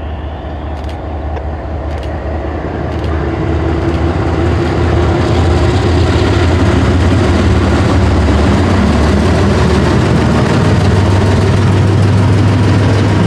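GE diesel locomotives leading a freight train (two ES40DC units and a CW40-8) approach and pass. Their engine drone grows louder over the first few seconds, then runs loud and steady, and its pitch steps up about ten seconds in.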